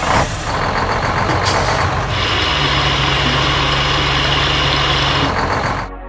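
Cartoon sound effects of a dump truck with its engine running while loose material pours from a hopper into its bed: a steady, dense rushing noise. A low hum and a high hiss join about two seconds in and stop shortly before the end.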